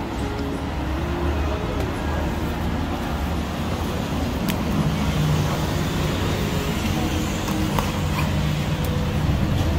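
Busy city road traffic: a steady mix of engine hum and road noise, with one vehicle's engine tone growing louder about halfway through. A few light clicks are heard over it.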